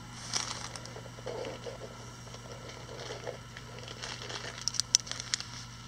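Quiet room tone with a steady low hum. About three quarters of the way through, a small plastic packet crinkles and clicks briefly as it is handled.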